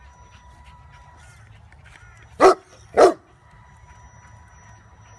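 A dog barks twice, about half a second apart, a little over two seconds in.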